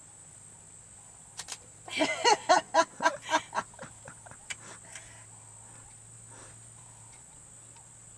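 A monkey giving a quick run of chattering calls: about a dozen short pitched pulses in a second and a half, starting about two seconds in and trailing off.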